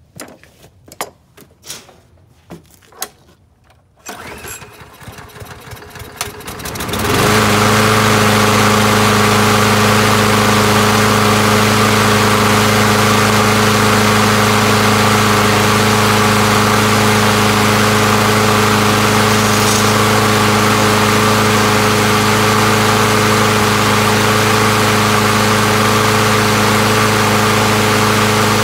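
Troy-Bilt 21-inch push mower's small engine being pull-started: a few knocks and clicks, then cranking that builds until the engine catches about seven seconds in. It then runs steadily and evenly with no sputtering, its carburetor freshly cleaned and the clogged fuel inlet passage cleared.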